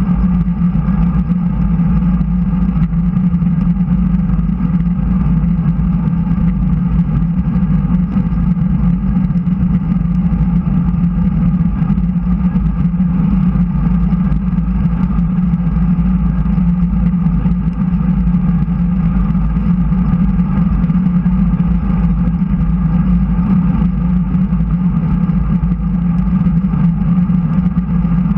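Wind rushing over a bike-mounted action camera's microphone and road-bike tyres rolling on smooth track asphalt at speed, a loud, steady low rush with a constant low hum.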